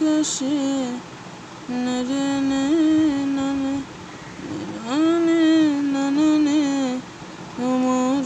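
A single voice humming a slow song melody in long held notes, in phrases of about two seconds with short pauses between them.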